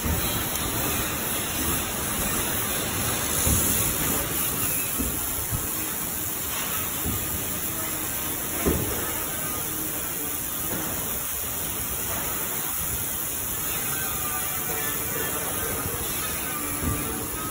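Steady hiss of a handheld laser welder at work on stainless steel, with a few light clicks.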